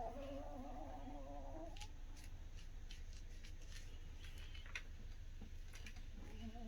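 Yorkshire terrier snoring: a pitched, wavering snore for the first couple of seconds, a pause with a few faint clicks, then the next snore starting near the end.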